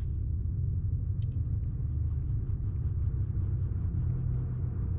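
A steady low rumble from the animated film's sound track. Over it comes a run of faint quick ticks, about five a second, starting a little over a second in and stopping shortly before the end.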